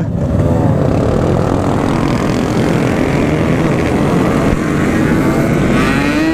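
Yamaha RX-King's 135cc two-stroke single-cylinder engine running under way through a standard-look aftermarket exhaust. Its pitch dips just after the start, holds steady, then rises as the revs climb over the last second.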